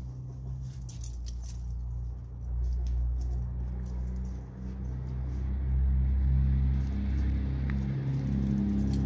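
Chickens pecking at food on a plastic plate, sharp clicking pecks in the first couple of seconds. A steady low mechanical hum underlies it and is the loudest sound, swelling louder partway through.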